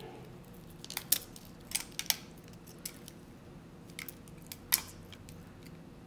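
Small, sharp clicks and taps, scattered and irregular, as leftover ice is picked and chipped off a frozen metal plasma lighter by hand.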